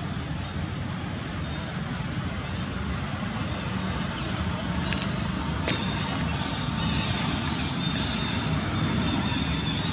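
Steady low outdoor rumble, growing a little louder partway through, with a few faint clicks in the middle.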